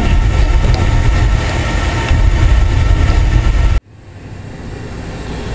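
Gas furnace main burner burning with a loud steady rumble, just lit by the pilot of a Honeywell intermittent-pilot spark ignition kit. About four seconds in it cuts off abruptly, leaving a much quieter steady hum.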